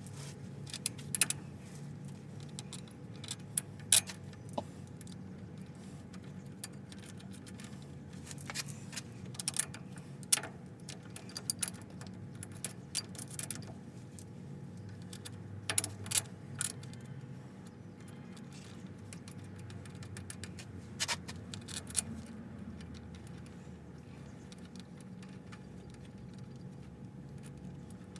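Irregular light metallic clinks and taps, in scattered clusters, from hand tools and metal parts being handled during drive-shaft universal-joint work, over a low steady hum.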